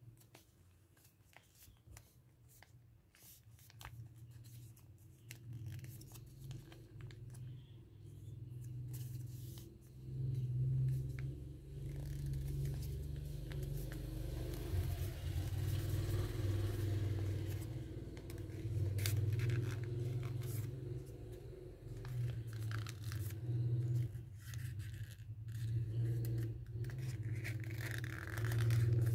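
Sheet of lined notebook paper being folded and creased by hand: scattered crinkles and scrapes as the folds are pressed. A low steady hum builds up under it and is the loudest sound from about a third of the way in.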